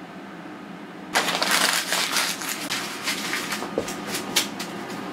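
Sheet of notebook paper being crumpled and rustled close up: a dense crackling that starts suddenly about a second in and goes on loudly to the end.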